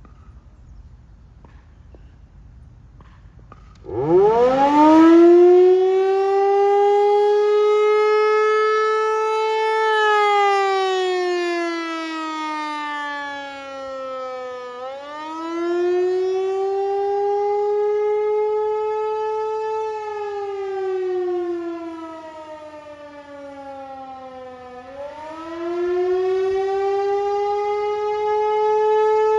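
Federal Signal 508 outdoor warning siren sounding its Attack signal. It starts about four seconds in and winds up quickly to a loud, steady pitch. It then runs in a slow wail, sliding down and back up roughly every ten seconds.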